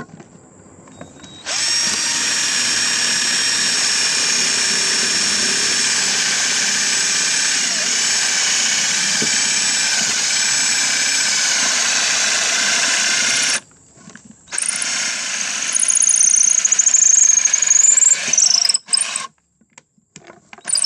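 Power drill running steadily for about twelve seconds, stopping, then running again for about five seconds with its whine wavering in pitch before it cuts off.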